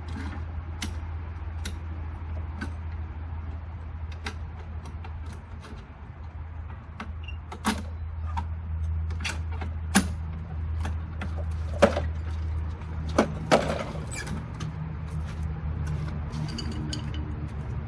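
Craftsman lawn mower's engine running steadily after its recoil starter was replaced, with several sharp clicks and knocks over the top.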